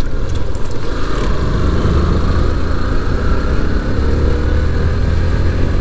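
Motorcycle engine running steadily while the bike is ridden along a road, under a steady low rumble.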